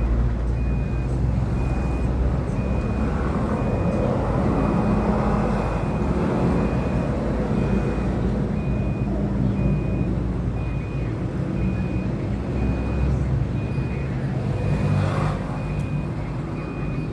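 A motor running steadily with a low hum, alongside a short high beep repeating evenly.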